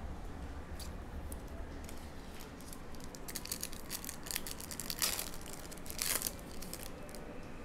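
Foil trading-card pack being torn open and crinkled by hand: scattered crackles, with two louder brief rips about five and six seconds in.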